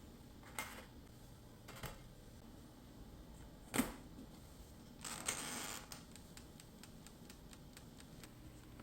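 A few separate sharp clicks and one louder knock, a short scraping rustle about five seconds in, then a run of faint quick ticks, about four a second.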